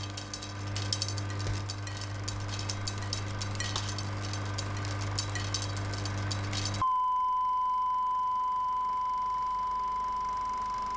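Old film or tape soundtrack noise: a steady low hum with dense crackle and scattered clicks. About two-thirds of the way through this cuts off abruptly and is replaced by a steady pure high beep, like a 1 kHz line-up test tone, which holds on.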